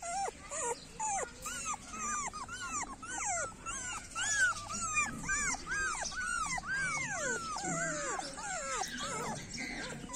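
Puppy crying in a steady string of short, high whines and yelps, each rising then falling, about two or three a second.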